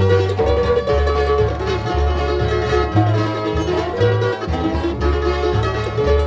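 Bluegrass band playing an instrumental: quick plucked-string melody from banjo, mandolin and guitar over a bass keeping a steady two-beat.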